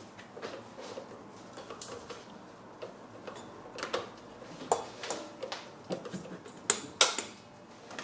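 Irregular light clicks and knocks of a plastic dough scraper and hands against a stainless steel mixing bowl and stand mixer while dough is scraped down, the sharpest knocks near the end.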